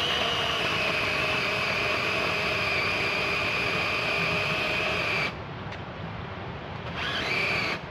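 Battery-powered electric chainsaw running at a steady high pitch, cutting through a fallen tree trunk. It stops abruptly about five seconds in, then runs again briefly near the end.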